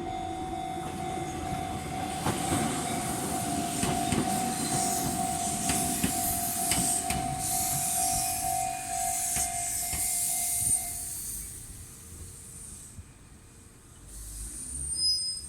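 An electric commuter train passes over a level crossing, its wheels knocking over the rail joints amid a loud rushing rail noise. Meanwhile the crossing's electronic alarm keeps sounding its Chichibu-type warning tone. The alarm cuts off about two-thirds of the way through and the train noise fades away.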